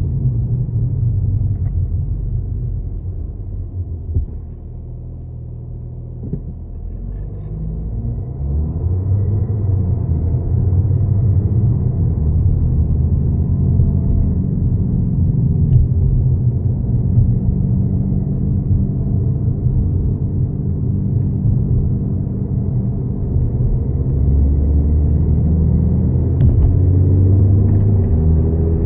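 Audi A6 4G quattro on the move, with a low rumbling drone from a defective wheel bearing. The rumble eases off about four seconds in, then builds again and rises in pitch towards the end as the car picks up speed.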